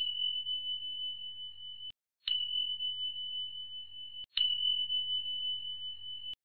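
Subscribe-button overlay sound effect: a click and a high, bell-like ringing tone, played three times about two seconds apart, each cut off abruptly.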